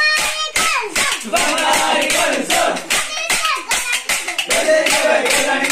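A group of boys chanting and shouting a folk song while clacking wooden sticks together in a quick, steady rhythm.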